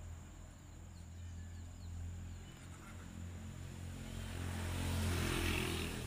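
Low drone of a passing motor vehicle's engine, growing louder and at its loudest about five seconds in.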